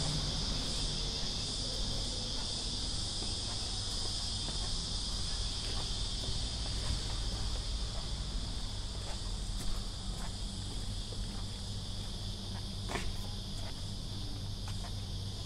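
Cicadas buzzing in a steady, unbroken chorus, with soft footsteps on the paving underneath.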